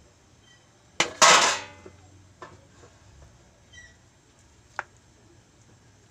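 Metal cookware clanking against a cooking pan: a sharp knock about a second in, then a loud ringing clang that dies away within half a second, followed by a few lighter clinks.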